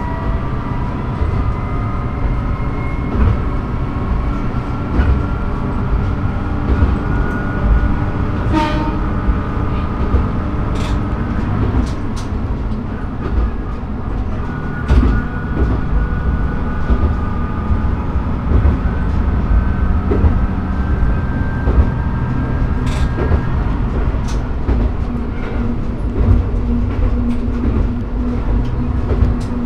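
Diesel railcar running along the line, heard from inside near the cab: a steady engine and rolling noise, with a whine that rises in pitch over the first few seconds and irregular clicks as the wheels cross rail joints.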